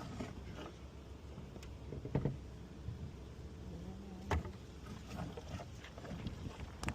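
Car lockout tools working on a car door: a few sharp clicks and knocks, about two seconds in, again a little after four seconds and near the end, over a low steady rumble.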